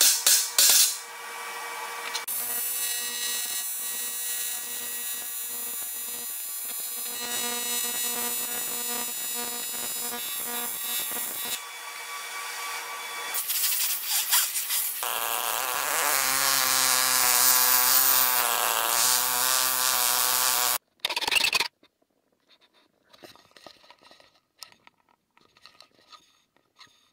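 Shop tools at work on a TIG-welded aluminum ball: a few sharp knocks, then a long steady hiss with a whine, including a blast of compressed air from a blow gun. A louder, rougher run with a low hum cuts off suddenly about three-quarters of the way through, followed by a few faint clicks.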